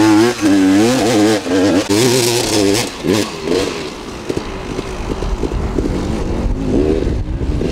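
KTM 300 EXC two-stroke enduro motorcycle engine revving, its pitch rising and falling quickly as the throttle is worked. After about four seconds it turns quieter and rougher, with a low rumble.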